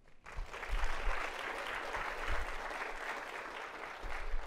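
Audience applauding at the end of a lecture. The clapping starts a moment in, holds steady, and fades out at the very end.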